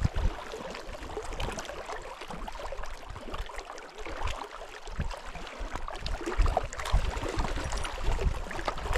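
Water lapping and wind gusts buffeting the microphone, with irregular low rumbles and scattered light clicks and handling noises.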